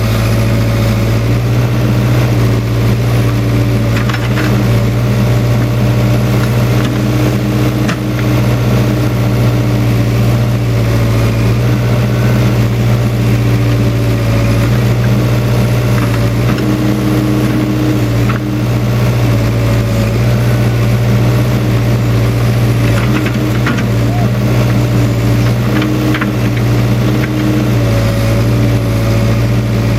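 Case 580K backhoe's diesel engine running steadily, its pitch dipping and rising a little at times as the load changes, with a few sharp knocks along the way.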